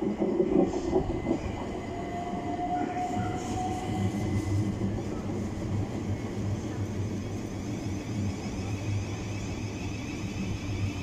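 Thameslink Class 700 electric multiple unit running slowly past the platform: steady rolling noise and a low electric hum, with a brief whine about two seconds in.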